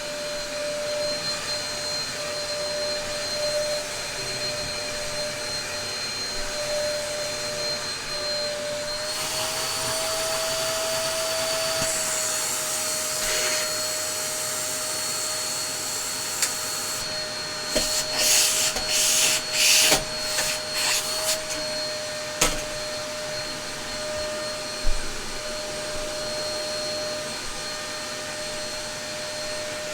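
Dyson DC03 upright vacuum cleaner running with a steady motor whine and airflow hiss; the pitch rises a little about nine seconds in. From about 18 to 21 seconds comes a run of loud crackling bursts, and single sharp knocks follow near 22 and 25 seconds.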